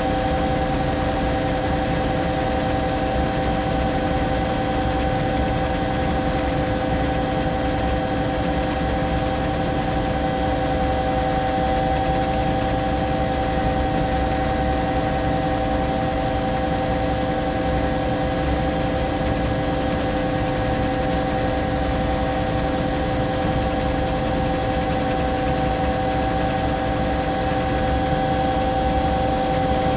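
Cabin noise of a Bell 212 twin-turboshaft helicopter in flight: a steady drone of rotor and engines with a constant high turbine whine. It holds level and unchanging throughout.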